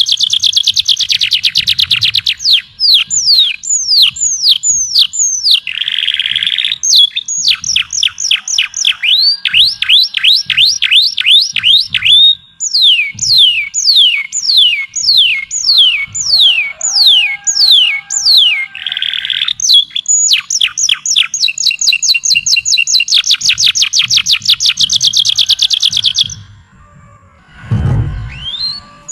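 A songbird singing a loud, varied song of high whistled notes. Fast trills alternate with phrases of slower, sweeping notes, and two short buzzy notes break them up. The song pauses briefly near the end, where there is a low thump.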